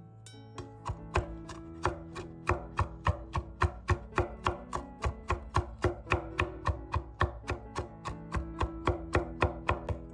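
Knife chopping quickly on a cutting board, a steady run of about four strokes a second starting about a second in, over background music.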